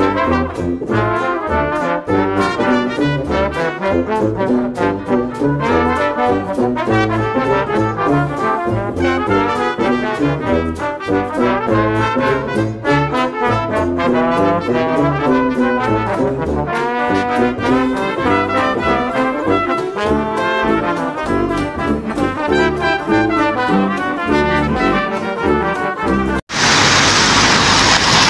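Intro music plays under a title sequence. About 26 seconds in it cuts off abruptly, and a steady even noise of street ambience takes over.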